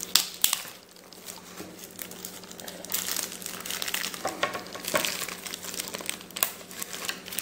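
Clear plastic wrap crinkling and crackling as it is peeled and pulled off a flat board by hand, uneven, with a few sharper snaps.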